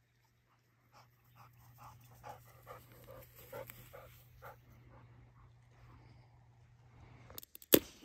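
Dog panting in a quick, even rhythm, about three breaths a second. A few sharp knocks near the end, the last one the loudest.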